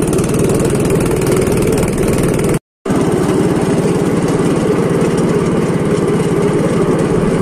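Small engine of a motorized rail trolley running steadily with a fast even pulse. It cuts out for a moment about two and a half seconds in, then carries on.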